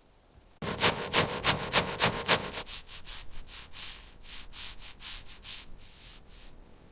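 Wood being hand-sanded in quick back-and-forth strokes, about three a second. The strokes are loud at first and turn softer after about two seconds.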